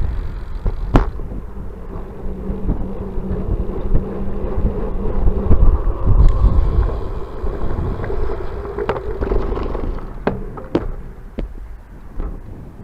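Wind buffeting the microphone of a bicycle-mounted camera over the rumble and rattle of the bike rolling along path and road, with a few sharp knocks near the end.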